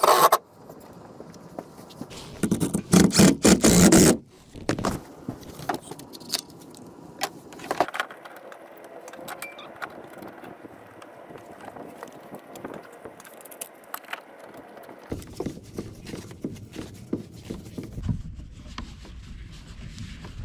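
Knocks, scrapes and rattles of gear being handled as an electric trolling motor and a wooden crossboard are fitted to a canoe. There is a short sharp clatter at the very start and a louder two-second stretch of noise from about two seconds in.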